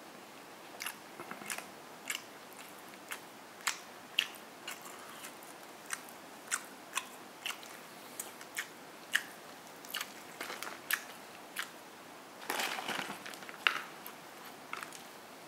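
Close-up crunching and chewing of crispy fried chicken chop: sharp, separate crunches every second or so, with a denser rustling stretch near the end.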